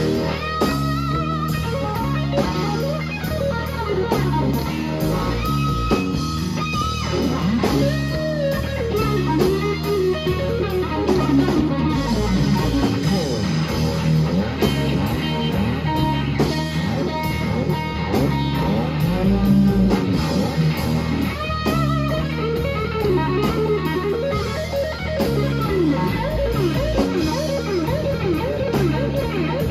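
Live blues-rock trio playing: a Delaney electric guitar through a Fender Super Reverb amp plays lead lines full of string bends, over bass guitar and a drum kit keeping a steady beat.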